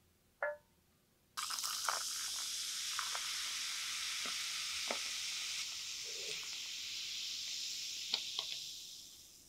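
Cola poured into a glass over ice, fizzing in a steady hiss that starts suddenly about a second and a half in, with small ice cracks and pops, the fizz dying away near the end. A short ringing tone sounds just before the pour.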